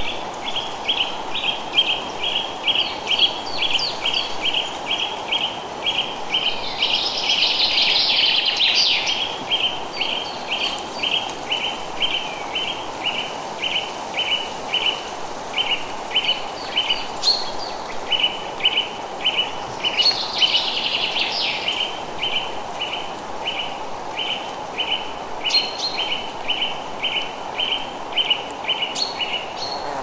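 Forest ambience: a short, high chirp repeated steadily about two to three times a second, with two brief bursts of bird song, over a steady background hiss of wind in the trees.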